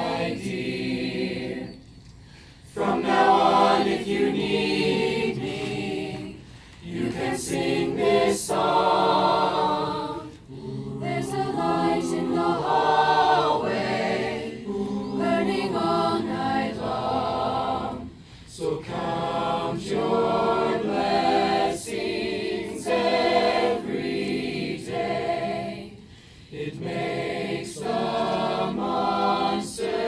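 School choir of teenage girls and boys singing a gentle, lyrical song together, in phrases with short breaks between them.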